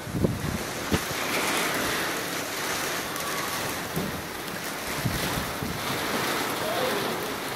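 Strong storm wind rushing steadily, with gusts buffeting the phone's microphone in low thumps about a second in and again around four and five seconds in.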